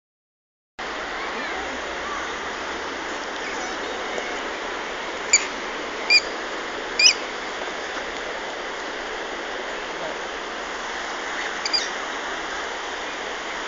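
Steady rushing of running water, with three short high squeaks about five to seven seconds in and another near the end.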